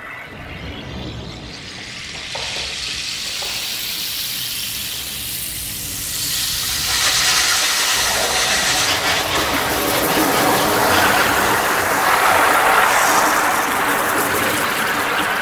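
A sustained rushing hiss from the performance's soundtrack, swelling slowly and growing louder about seven seconds in.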